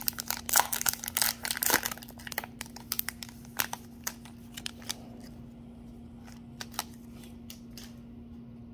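Foil trading-card pack wrapper crinkling and tearing as it is ripped open and the cards are slid out, dense for the first two seconds and thinning out by about five seconds in, then only a few faint clicks of the cards. A faint steady hum runs underneath.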